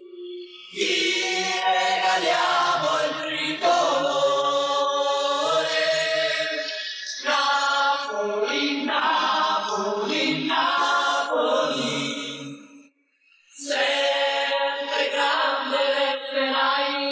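Song with a group of voices singing long held notes in chant-like phrases; the music drops out briefly a few seconds before the end, then the voices come back on a long held note.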